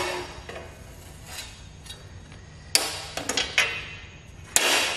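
A long metal ruler knocking against a sheet of steel as it is laid down and lined up for marking: a few sharp taps about three seconds in, then a louder clatter with a brief ring near the end.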